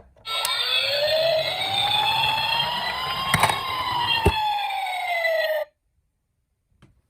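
Police-car wail sirens, two sounding at once, their pitches sweeping up and down and crossing, with a few sharp clicks over them; they cut off suddenly about five and a half seconds in.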